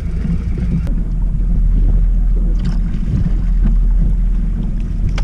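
Wind buffeting the microphone on an open boat on choppy water, heard as a loud, steady low rumble that grows heavier about a second in, with a single sharp click just before.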